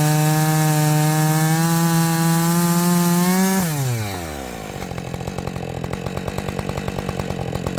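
Husqvarna 545 two-stroke 50cc chainsaw running at full throttle in a cut. About three and a half seconds in, the throttle is released and the revs fall smoothly to a steady, pulsing idle.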